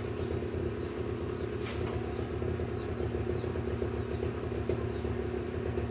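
A motor running with a steady low hum, holding an even pitch throughout, with one light tap a little under two seconds in.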